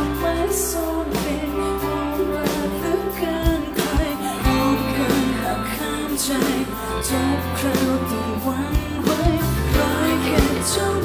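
Live band music with a woman singing lead: sung melody over bass guitar, guitar and a drum kit.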